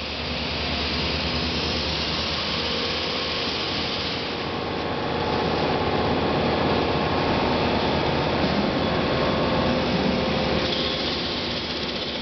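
Heesemann industrial sanding machine running: a steady rushing mechanical noise with a low hum underneath, getting a little louder about five seconds in.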